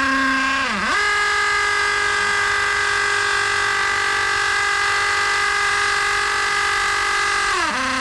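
Electric drill running at a steady high whine, its pitch dipping briefly about a second in and again near the end as the motor slows and picks back up.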